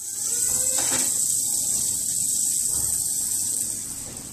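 Stuffed paratha frying on a hot tawa with butter added: a steady high sizzle that eases off near the end, with a light tap of the spatula about a second in.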